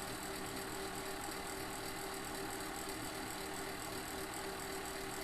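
Steady hum of a car engine idling, heard from inside the cabin, with a few constant low tones and no change in level.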